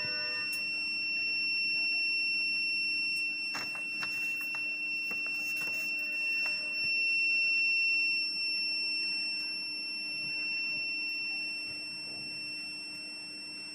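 Alarm buzzer of a handheld alcohol breath analyser sounding one steady, high-pitched tone. The alarm is set to go off above a 20% reading and is triggered by the alcohol vapour of hand sanitizer.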